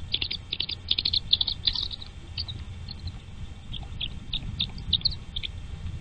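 Nestling birds cheeping: quick runs of short, high-pitched notes, thickest in the first two seconds and again about four to five seconds in, over a low steady rumble.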